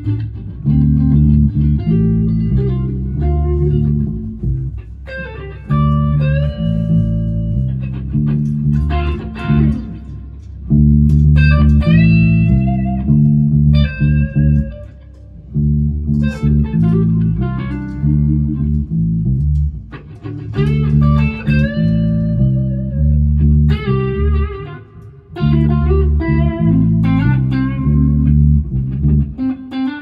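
Electric guitars played through amplifiers: a low riff repeating under higher lead notes with string bends, with a few short pauses between phrases.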